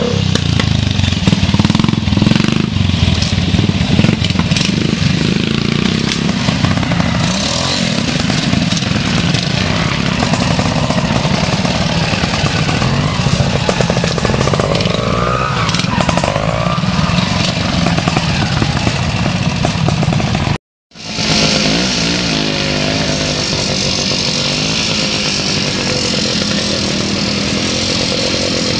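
Vintage trials motorcycle engines running and revving through a trials section, the pitch rising and falling with the throttle. About two-thirds of the way through the sound cuts out abruptly, and then a different, higher-pitched bike engine blips and revs.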